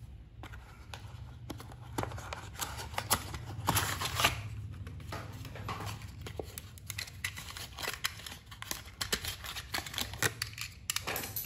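A small cardboard toy box being handled and opened, with scraping and rustling as the card sleeve and plastic tray slide apart to free a diecast toy truck, and scattered clicks and taps throughout.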